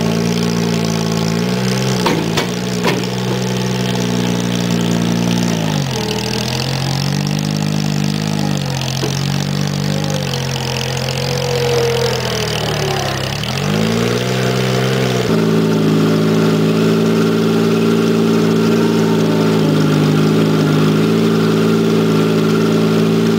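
Case 1816 skid-steer loader, repowered with a Geo Metro car engine, running while it works: the engine pitch sags twice under load, with a few sharp knocks about two to three seconds in. In the second half the engine holds a steady speed.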